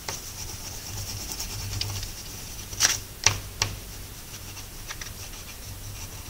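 Wax crayon rubbing back and forth on paper, colouring in an area. Near the middle come three sharp taps in quick succession, louder than the rubbing.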